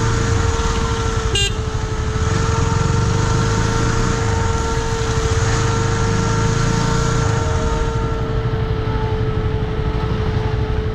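KTM 250 Duke's single-cylinder engine running at low road speed, with wind and tyre noise on a wet road. A steady high tone sounds over it and fades after about eight seconds, and there is a short click about a second and a half in.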